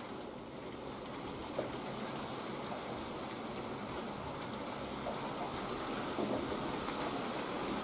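Model freight train rolling on the layout's track behind a Fleischmann class 151 model locomotive: a steady rattling whirr of many small wheels on the rails, with a few light clicks.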